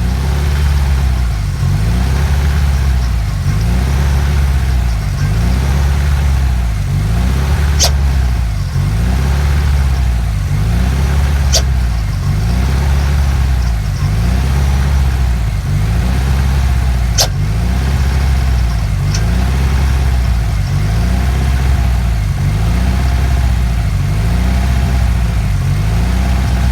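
Subaru WRX's turbocharged flat-four engine running with a screeching noise from the turbo. A steady low drone swells and fades about every second and a half, with a few sharp clicks.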